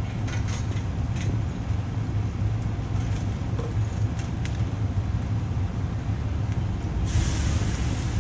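A motor vehicle's engine idling with a steady low rumble, with a few faint clicks and a short burst of hiss about seven seconds in.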